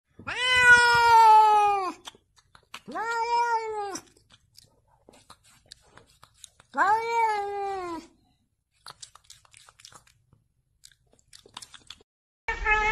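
Domestic cat meowing three times in long, drawn-out calls, each arching and then sliding down in pitch. The first call is the longest, nearly two seconds. Faint scattered clicks fall between the calls.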